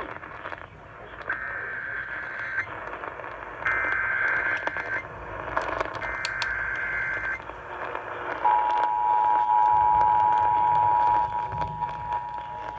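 Emergency Alert System activation received over radio with static: three short bursts of the warbling two-pitch SAME data header, then the steady two-tone attention signal starting about two-thirds of the way in. This signals a severe thunderstorm warning.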